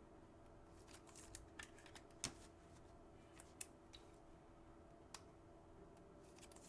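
Faint, scattered clicks and light rustles of trading cards and a foil pack being handled, over a low steady hum.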